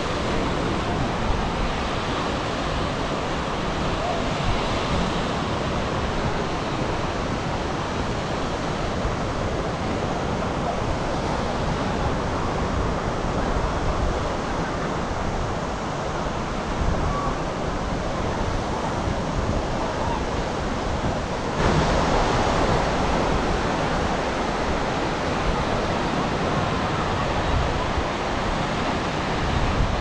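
Sea surf washing onto a beach, a steady rush of water that grows louder about two-thirds of the way through. Faint voices can be heard under it.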